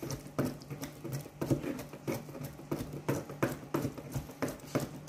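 Cleaver chopping peeled raw shrimp into a mince on a cutting board: a steady run of short knocks, about three a second.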